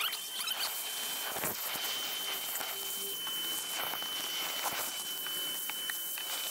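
Shop vacuum running with a steady high whine and rushing air as its hose and crevice nozzle suck up dirt and debris, with a few scattered clicks of grit going up the hose.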